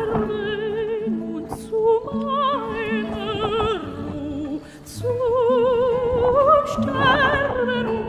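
Music: a singer holding long notes with wide vibrato in an operatic style, over an accompaniment of repeated low notes.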